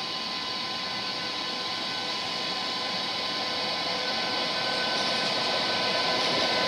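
DB class 101 electric locomotive moving slowly, its traction equipment giving a steady whine of several fixed tones over a rumble, growing louder as it draws near.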